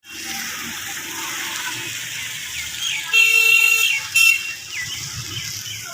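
A vehicle horn honks twice over a steady hiss: one longer blast about three seconds in, then a short toot a moment later. Small falling chirps, like birds, sound between them.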